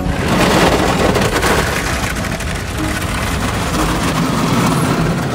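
Automatic car wash spraying water and scrubbing brushes against the car, heard from inside the car: a loud, steady rush of water on the glass and body.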